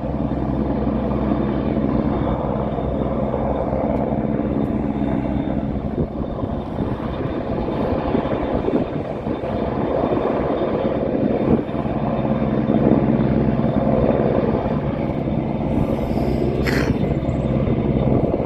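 AgustaWestland AW101 helicopter hovering, a steady deep drone of rotor and turbines that swells and eases a little in level.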